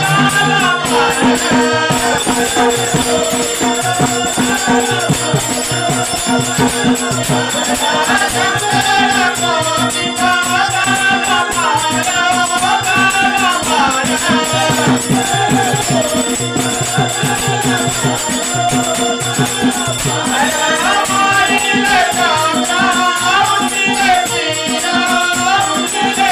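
A Dandar folk-theatre gan, a devotional invocation, sung by several voices in a chant-like melody over a steady drone. Fast rhythmic rattling percussion keeps time throughout.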